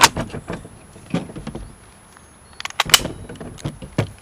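Sharp metallic clicks and knocks from an SKS rifle being handled, its magazine and newly fitted rapid magazine release being worked. Several separate clicks, with a cluster of them about three seconds in.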